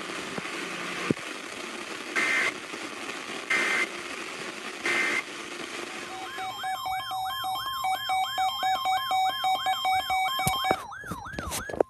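Weather radios going off for a new alert. Over static come three short beeps, then several radio alarms sound together from about six seconds in: a steady alert tone with a fast warbling siren tone cycling about three times a second. It stops abruptly with a few clicks near the end.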